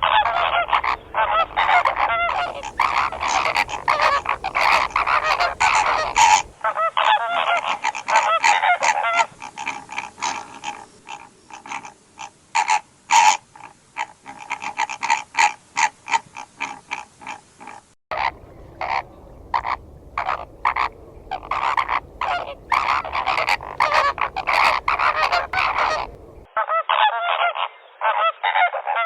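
A flock of flamingos calling: many rapid, overlapping honking calls. The sound changes abruptly several times where separate recordings are joined.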